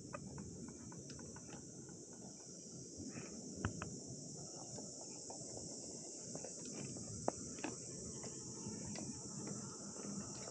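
Steady high-pitched insect chorus, with a low rumbling noise underneath and scattered sharp clicks, the loudest about seven seconds in.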